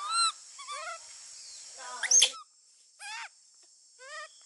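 Baby macaques giving a run of short, high-pitched squeaky calls, each rising and falling in pitch, with the loudest a little over two seconds in.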